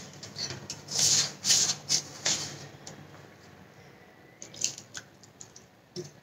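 Hands rubbing and squeezing crumbly whole-wheat flour dough in a stainless steel bowl as it is kneaded stiff, with water dribbled in from a steel tumbler: a run of soft rustling scrapes, loudest in the first couple of seconds and fainter after.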